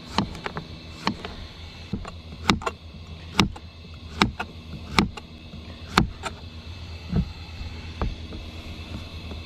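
Kitchen knife slicing through zucchini and yellow squash, each cut ending in a sharp tap on a plastic cutting board, roughly once a second. A steady low hum underneath.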